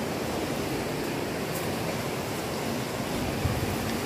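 River rapids rushing steadily, a constant roar of fast white water.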